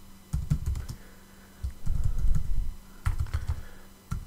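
Typing on a computer keyboard in three short runs of keystrokes, each keystroke a click with a dull low thump, over a faint steady low hum.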